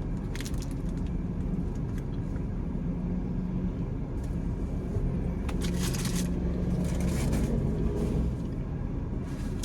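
Car engine idling steadily, heard from inside the parked car's cabin, with a few short scratchy noises.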